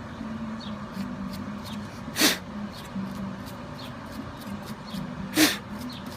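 A small brush scrubs gunk off the end of a mower's ignition switch in light, quick strokes. Two short, loud hissing bursts come about three seconds apart.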